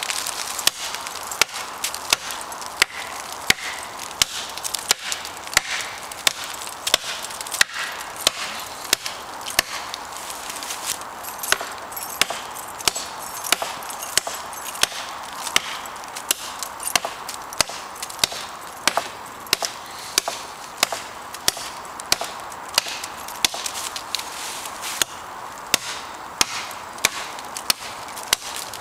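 A large machete-style blade chopping into a standing sapling trunk: a long, steady run of sharp chops, about one every two-thirds of a second.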